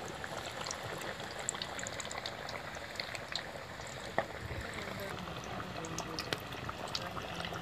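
Small fish deep-frying in hot oil in an aluminium pan: a steady sizzle dotted with small crackles, and one louder pop about four seconds in.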